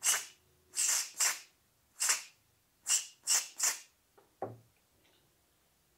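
Aerosol cleaner fired in short bursts through a red extension straw, reverse-spraying (backflushing) the oil jets of a KTM Duke 390 cam bearing bridge to clear them of dirt. About seven quick hisses come in the first four seconds, then a single dull knock.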